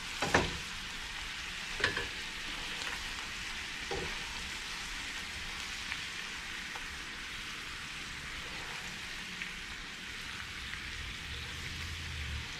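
Honey-lemon sauce sizzling steadily in a skillet. A spatula clicks and scrapes against the pan a few times, loudest near the start and about two seconds in.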